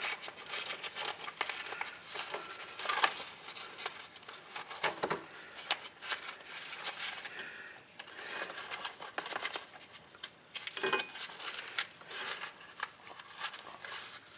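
Tape being pulled off the roll and wrapped around a wiring harness: irregular crackling, tearing and rustling with many small clicks.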